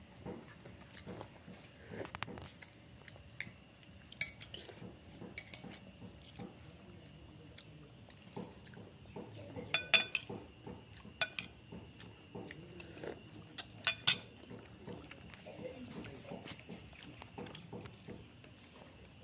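A cat chewing and crunching shellfish scraps: soft, irregular crackling with several sharp crunches, the loudest about halfway through and again a little later.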